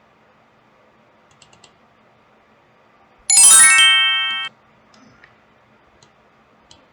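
A chime sound effect played back once, about a second long: a sharp, bright ding with a quick rising run of ringing tones, cut off suddenly. Faint clicks come before and after it.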